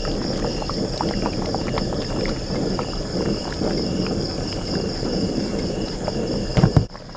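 Thick curry bubbling hard in a pan, a dense crackle of small pops, as chunks of taro and taro stem are tipped in and pushed about with a spoon. Crickets chirp steadily high above it, and a single thump comes near the end.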